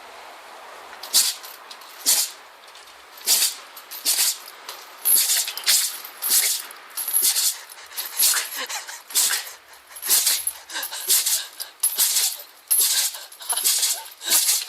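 A dog sneezing over and over: more than a dozen short, sharp sneezes, about one a second.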